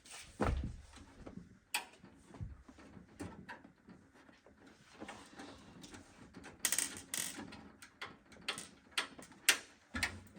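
Screwdriver work on a metal PC case: a series of sharp metallic clicks and knocks as small screws and parts are worked loose, with a heavier thump about half a second in.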